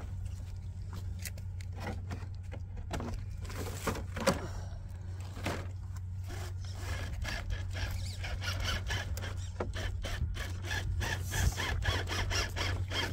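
Traxxas TRX-4 K10 RC rock crawler working up a steep rock face: its small electric drivetrain whirs in short bursts while the tyres scrape and grip on the stone. Scattered scrapes and clicks at first, then from about seven seconds in a fast series of scrapes that grows louder.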